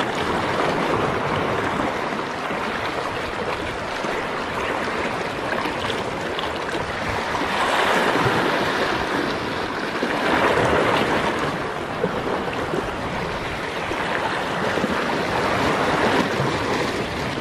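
Sea waves washing against a rocky shore as a steady rushing noise, swelling louder twice, about eight and about ten seconds in.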